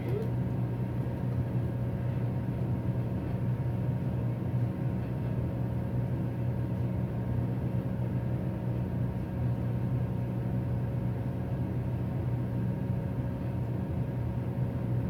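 Steady low mechanical hum with a few faint steady higher tones, unchanging throughout.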